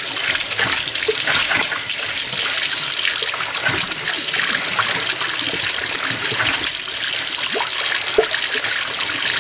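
Kitchen sink faucet running on the hot side, water gushing and sputtering unevenly as air still trapped in the lines spits out after the plumbing was refilled.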